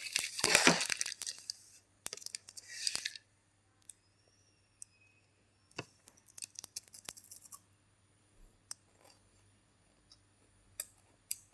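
Plastic chocolate-bar wrapper crinkling and tearing for about two seconds, with a shorter rustle about a second later. Scattered small crackles and clicks follow.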